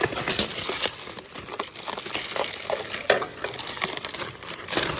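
Packaging wrap being torn and crumpled off a new aluminum truck fifth wheel: a dense, irregular crinkling and crackling with short sharp rustles throughout.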